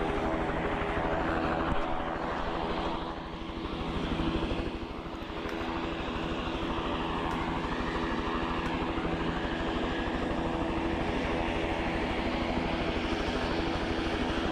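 Steady engine drone with several held tones and a fast low pulsing, briefly dipping about three and five seconds in.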